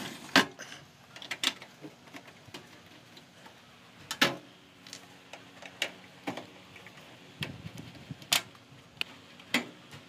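Scattered sharp clicks and knocks as a microwave oven's sheet-metal casing is handled and its screws are worked out with a screwdriver.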